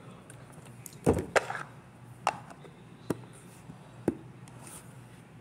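Hard plastic tumbler knocking and clicking as it is handled on a countertop: five sharp separate knocks, the loudest two about a second in.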